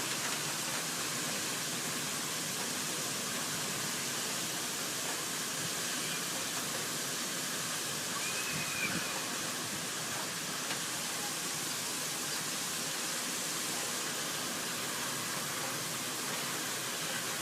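Steady, even rush of water during a flash flood after a heavy downpour.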